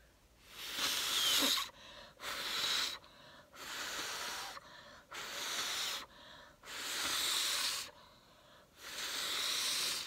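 A woman blowing hard onto wet poured acrylic paint to push it across the canvas: six long puffs of breath, each about a second long, with short pauses between them to draw breath.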